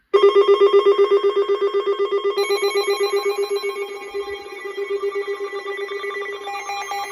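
Electronic emergency-alert alarm going off: a rapid bell-like ringing that pulses about eight times a second, with a higher tone joining in about two and a half seconds in. Near the end a falling tone begins. It is set off by the warning's data burst that interrupts the weather radio broadcast.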